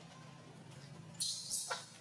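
Baby macaque screaming in short, shrill bursts from a little over a second in, one cry falling sharply in pitch, over a faint steady low hum.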